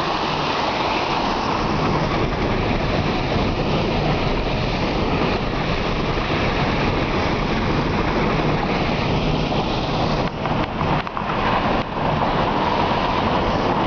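Pickup truck driving through about a foot of water on a flooded river crossing, heard from inside the cab: a steady rush of water spraying against the wheels and body over a low engine hum. The rush dips briefly a few times a little after ten seconds in.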